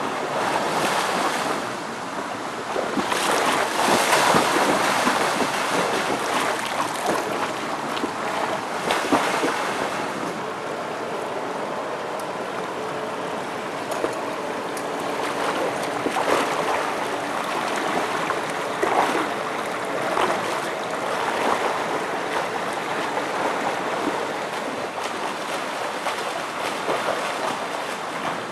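Swimming-pool water splashing and sloshing as someone swims, with brief louder splashes now and then.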